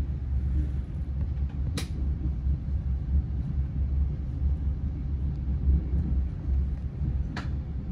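Low steady rumble of a train, with two sharp clicks about five and a half seconds apart.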